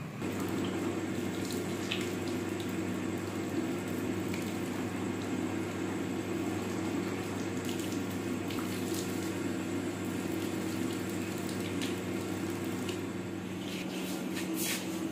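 Water running from a tap as hands are washed under it, over a steady low hum, with a few light clicks near the end.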